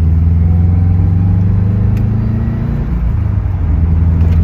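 Inside the cabin of a moving Subaru WRX hatchback: the turbocharged EJ257 flat-four engine and the road noise make a steady low drone. The loudness dips briefly about three seconds in, and the engine note shifts before the drone settles back.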